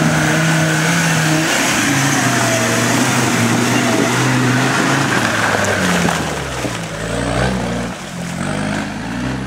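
Land Rover Defender engine working under load as it drives through deep mud, running steadily as it passes close by. About two-thirds of the way through, the revs start rising and falling repeatedly.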